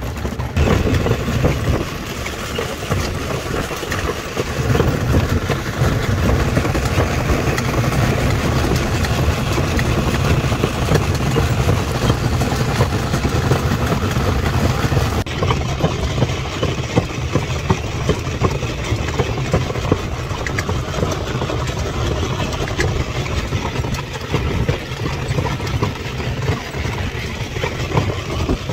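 Horse-drawn wooden cart rolling along a paved path: a steady, loud rumble and rattle from its wheels and frame, with many small irregular knocks.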